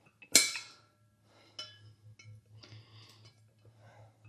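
Side cutters snipping off an old rubber valve stem at a steel mower wheel rim: one sharp snap about a third of a second in with a brief metallic ring, then faint clinks of the tool against the rim, over a steady low hum.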